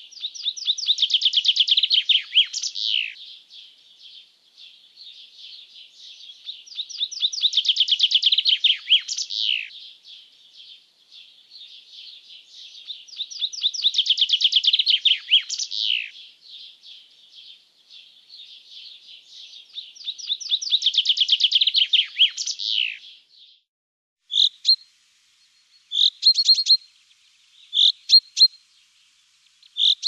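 A songbird singing the same song phrase four times, about six seconds apart; each phrase is a quickening run of notes that ends in a short falling flourish. In the last few seconds the phrases give way to short, separate chirps.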